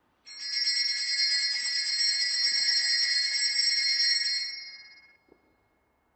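Altar bells shaken at the elevation of the host during the consecration, a bright jingling ring that holds steady for about four seconds and then fades away.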